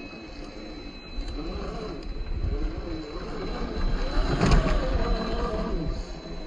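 Electric drive motor and gearbox of a Traxxas TRX-4 Defender RC crawler whining as it crawls over rock. The pitch rises and falls with the throttle, with the loudest surge about two-thirds of the way through.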